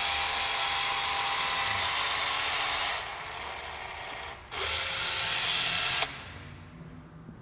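Battery-powered caulking gun's motor running as it pushes a bead of windshield urethane out of its long barrel. It runs steadily, eases off briefly about three seconds in, runs again, then stops about six seconds in.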